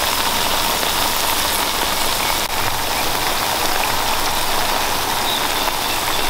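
Smashed plantain slices shallow-frying in hot oil in a skillet: a steady sizzle with dense crackling.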